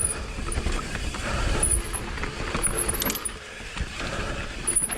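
Mountain bike rolling down a dirt singletrack: a steady low rumble of tyres and riding noise, with the bike rattling and clattering over bumps and a sharper knock about three seconds in.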